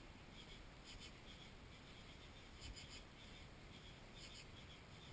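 Near silence, muffled by a waterproof camera case, with faint scratchy ticks coming irregularly several times a second.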